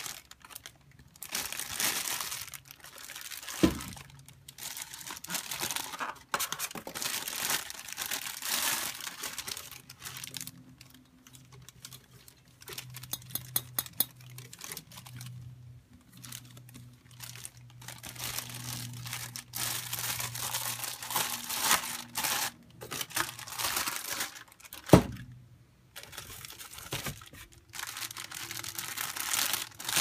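Clear plastic packaging bags and wrap crinkling and rustling in bursts as parts are pulled out and handled, with two sharp knocks, one about four seconds in and a louder one near the end.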